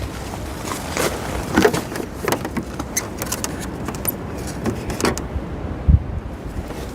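Scattered light clicks, knocks and rustles of handling, with a single low thump about six seconds in.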